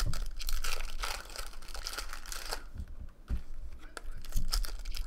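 Foil wrappers of Topps Chrome baseball card packs crinkling and tearing as they are ripped open and crumpled by hand, in an irregular run of crackles.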